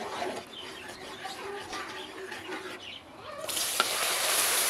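Milk poured into hot melted, caramelized sugar in an aluminium wok, setting off a sudden, loud sizzling hiss about three and a half seconds in, with a single sharp click soon after.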